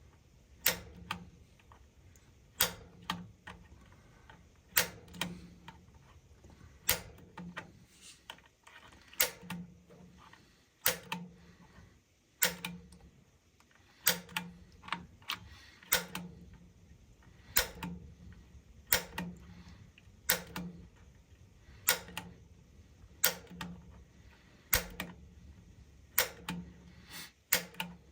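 Piezo spark igniter on a Rheem gas water heater being pressed over and over while the pilot gas button is held in: sharp, dry clicks about one every second or so, often in quick pairs.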